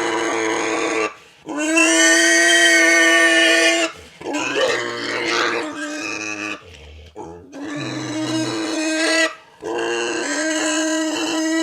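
A large pig squealing in long, steady, high cries, about five in a row with short breaths between, the middle one rougher and broken up, with a brief low grunt after it. The pig is protesting at being held for a chiropractic jaw adjustment.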